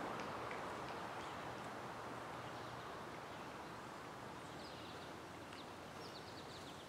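Outdoor ambience: a steady soft hiss with scattered faint bird chirps, a quick run of them near the end, the whole slowly getting quieter.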